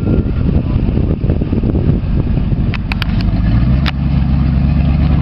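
Engine of a lifted square-body Chevrolet pickup running as the truck drives slowly past, a rough rumble that settles into a steady drone about three and a half seconds in. A few sharp clicks come shortly before that.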